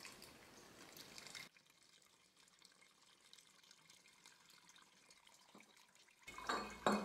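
Lemon juice pouring from a jug through a strainer into a glass jar of sugar, a soft steady trickle that drops abruptly to near silence about a second and a half in, with louder sound returning near the end.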